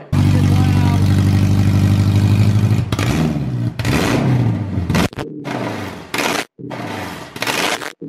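Swapped Honda K-series four-cylinder engine held at a steady high rev for about three seconds, then revs falling and blipping up again several times, with abrupt breaks in the sound.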